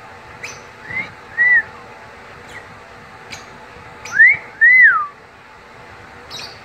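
Blue-and-gold macaw whistling a two-note phrase, a rising note then a rising-and-falling one, twice: softly about a second in and louder about four seconds in, with short clicks in between.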